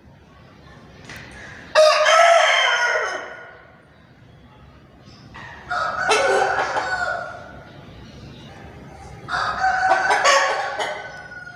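Chicken calling: three loud, drawn-out calls about four seconds apart, each lasting a second and a half to two seconds.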